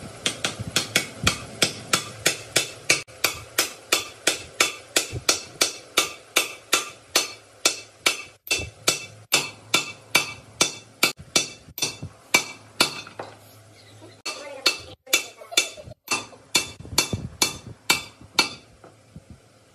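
Hammer striking metal in steady, rapid blows, about three a second, each with a bright metallic ring. The blows pause briefly a little past the middle, resume, and stop shortly before the end.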